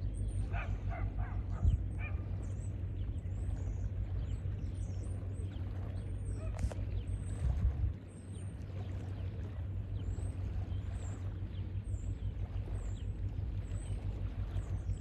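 Wind buffeting the microphone as a low, uneven rumble that drops off briefly about eight seconds in, with small birds chirping high and often over it and a short run of lower bird calls near the start.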